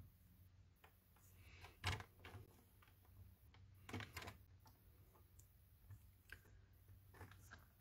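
Faint clicks and taps of cardstock being lined up on a paper trimmer, with the trimmer's blade slid along its rail to cut the strip about four seconds in. The sharpest click comes about two seconds in.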